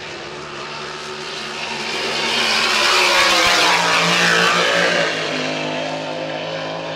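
Grand Prix class racing hydroplane running at full throttle on a time-trial lap: a steady, loud engine note that swells to its loudest about three to four seconds in, then eases off somewhat as the boat passes.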